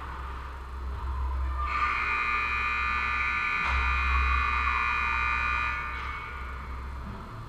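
Ice rink scoreboard buzzer sounding one steady note for about four seconds, starting about two seconds in, over a constant low rumble.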